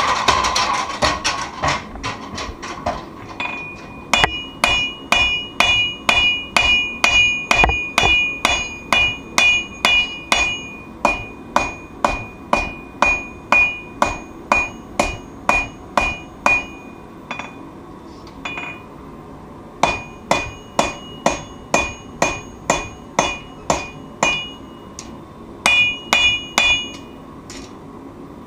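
Hand hammer striking steel on an anvil as a knife blade is forged. A quick run of lighter blows gives way to steady strikes about two a second, each followed by a bright ring. The strikes come in runs broken by short pauses.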